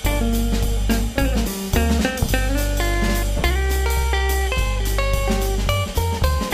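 Background music: plucked guitar notes over bass and drums, with a steady beat.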